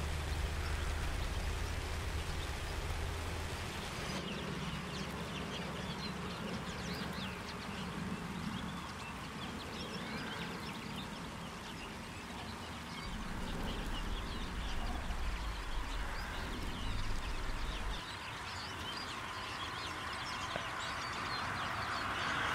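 A flock of small finches twittering: many short high calls overlapping, thickest from about four seconds in, over a steady hiss of rain. A low rumble comes and goes, near the start and again in the middle.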